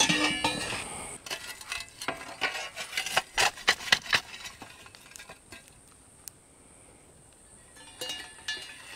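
A metal shovel scraping and clinking in a steel fire ring, scooping hot coals and tipping them onto a camp oven's lid. A quick run of scrapes and knocks, loudest about three to four seconds in, then a few lighter clinks near the end.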